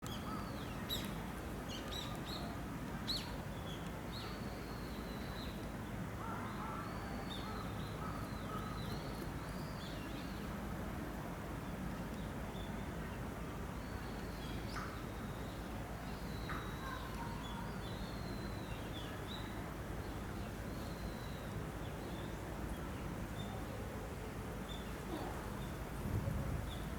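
Outdoor ambience with a steady low rumble and small birds chirping on and off. Near the end comes one short, loud, low-pitched puff.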